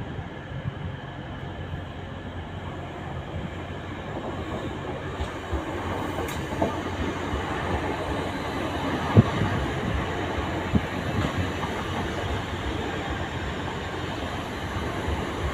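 Electric multiple-unit passenger train rolling into the platform, its wheels rumbling and clacking over the rail joints, growing louder as the coaches come alongside, with a sharp clack about nine seconds in.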